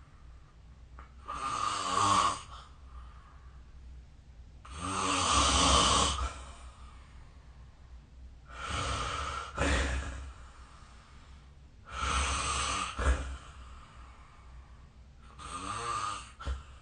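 A person snoring in sleep: five snores, one about every three and a half to four seconds, each lasting a second or so.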